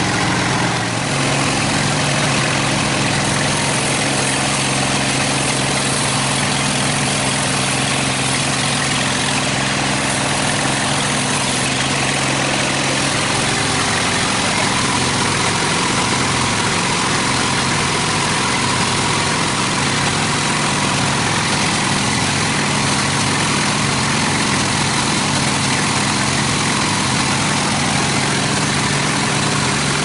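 Large band sawmill running steadily, its drive and blade giving a continuous machine hum with a hiss above it.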